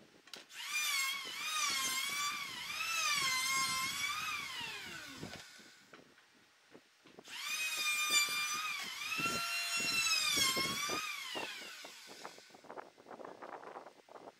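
A high-speed power tool motor runs twice, a few seconds each time, its whine wavering up and down in pitch and falling away as it winds down at the end of each run.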